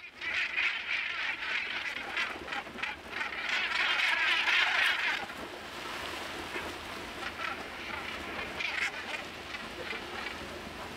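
A flock of northern gannets calling overhead, many short calls overlapping into a dense chorus. It is loudest in the first second and again from about three and a half to five seconds in, then thins out.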